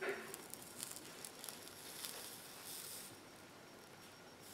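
Flux sizzling and crackling under a hot soldering iron tip as solder is melted along a stained-glass seam: a faint, bubbly noise of many small pops with short spells of hiss.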